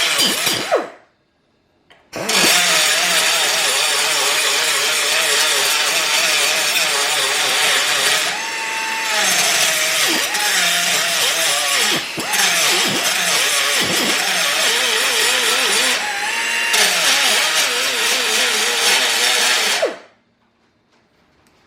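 SP Air SP-7231 flex-head pneumatic cut-off tool running and cutting: a high whine over a dense hiss, its pitch sagging and wavering as the wheel is loaded. It stops just under a second in, starts again about a second later, and shuts off near the end.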